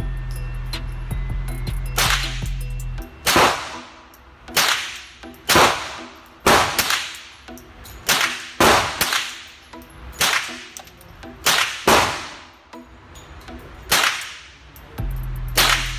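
Rifle shots on an indoor range, fired singly at an uneven pace, about a dozen in twelve seconds, each followed by a short ringing echo off the range walls. Background music with a low bass line plays under the first three seconds and returns near the end.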